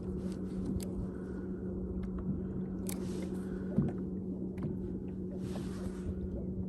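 A steady low hum, most likely a boat's electric trolling motor, with a few faint clicks and a brief soft hiss near the end.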